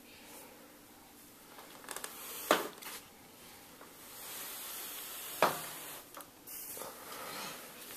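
Two short, sharp bursts about three seconds apart, with soft rustling noise around them.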